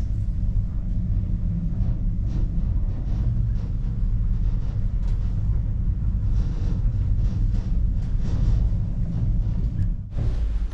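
Thonon-les-Bains funicular cabin running on its track: a steady low rumble with faint scattered clicks and rattles. The sound dips briefly and changes near the end.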